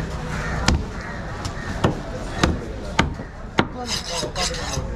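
A heavy curved knife chopping into a whole barracuda on a wooden cutting board: about five sharp, separate strikes roughly half a second apart, followed near the end by quicker, lighter scraping strokes.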